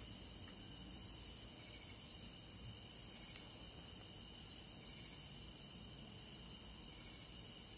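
Faint chorus of night insects, crickets among them: a steady high trill throughout, with a higher buzz pulsing about once a second over the first few seconds.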